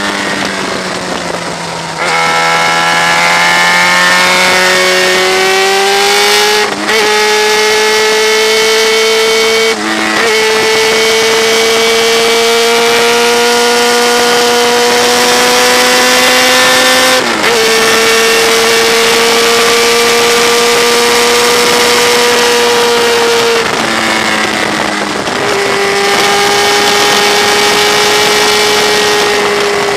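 Motorcycle engine running hard at road speed over rushing wind, its pitch creeping slowly upward and breaking or stepping abruptly several times.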